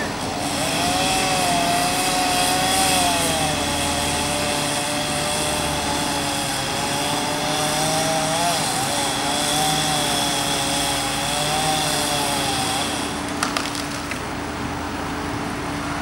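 Chainsaw running at high speed, cutting through a tree branch, its pitch wavering and dipping under load. It stops about thirteen seconds in, followed by a couple of sharp cracks.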